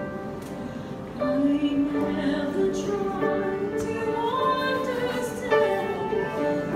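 A woman singing a sacred song solo over piano accompaniment, her voice coming in about a second in with a held, gliding melody.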